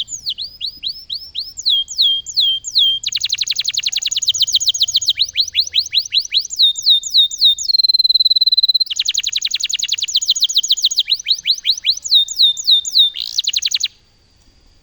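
Domestic canary singing a long, loud song of fast repeated down-slurred notes and rapid trills. About eight seconds in it holds one steady whistle for about a second before the trills resume, and the song stops near the end.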